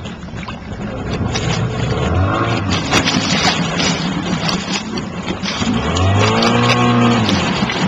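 A small boat's outboard motor revving up and easing off twice, about two seconds in and again near the end, over a steady rushing noise.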